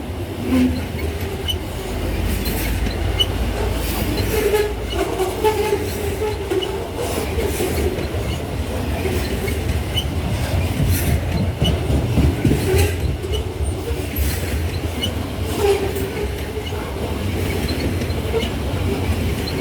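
Loaded grain freight train's wagons rolling past, with a steady rumble, wheels clicking over the rail joints, and brief metallic wheel squeals now and then.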